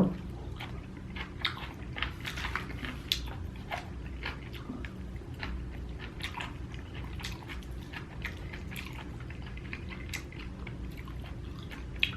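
A person chewing a mouthful of food close to the microphone: many small irregular clicks and smacks, busiest in the first half.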